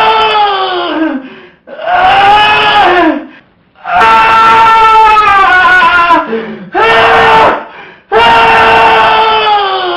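A man's voice making a loud, harsh, nasal 'eeehhh' screech, the 'most annoying sound in the world'. It is held for one to two seconds and sags in pitch at the end, repeated five times with short breaks.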